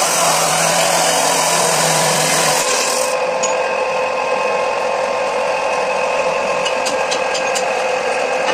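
A power tool running steadily in a metalworking shop. A hiss over it stops abruptly about three seconds in, and a few light clicks come near the end.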